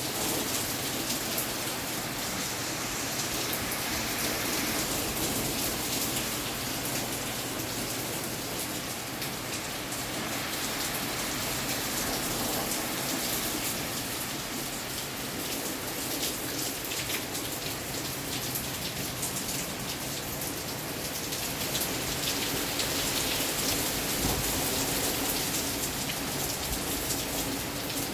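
Steady rain falling, the many separate drops heard as fine ticks within an even hiss.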